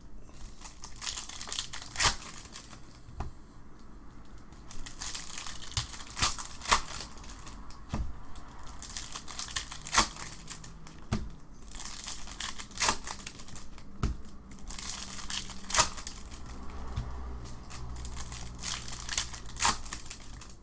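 Trading card pack wrappers being torn open and crinkled by hand: irregular sharp crackles and rustling bursts.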